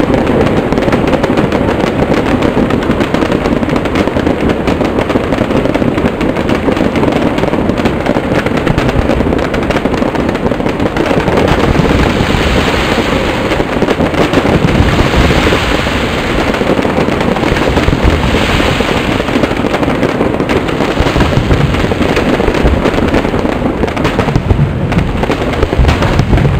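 Fireworks display of ground fountains and aerial shells going off without pause, a dense, continuous crackle of bangs. A brighter, hissing crackle swells for several seconds midway.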